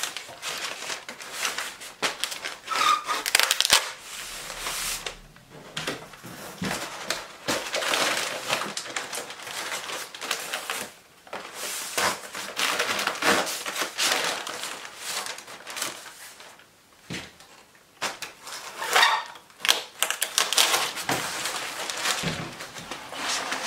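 Corrugated cardboard and wrapping paper rustling and scraping as they are folded around a parcel, with brown packing tape pulled off a handheld tape dispenser and pressed down several times, with short ripping swishes and clicks.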